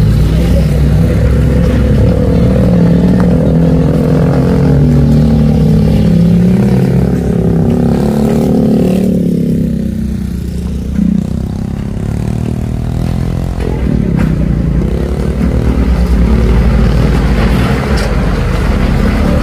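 Engines of a Mitsubishi L300 pickup and an old Mitsubishi light truck revving as they crawl over a deeply rutted, muddy road, the pitch rising and falling. The sound eases off about halfway through, and then a second engine rises close by.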